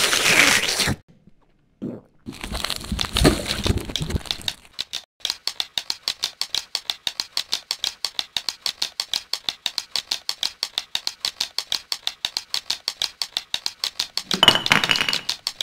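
Sound-effect soundtrack of a stop-motion animation: two short noisy crackling bursts, then a fast, even clicking rattle at about five clicks a second, with another short noisy burst near the end.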